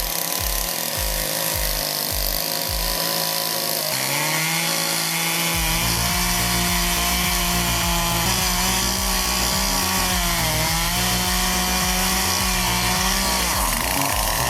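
A small engine running hard under load while cutting wood. The sound changes about four seconds in, and the engine pitch sags briefly twice in the second half.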